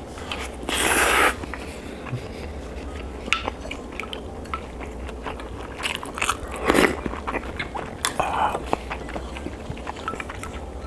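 Close-miked eating sounds of a person chewing a mouthful of rice and spicy fish stew, with scattered light clicks and a few louder noisy bursts, the strongest about a second in and around seven seconds.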